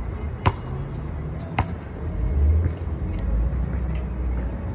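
A basketball bouncing on the court twice, two sharp knocks about a second apart, over a steady low rumble that swells a little in the middle.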